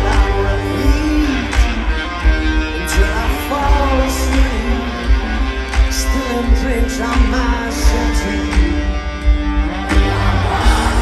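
Live rock band performing through a stadium PA: a male lead vocal sings over electric guitars, bass and a steady drum beat.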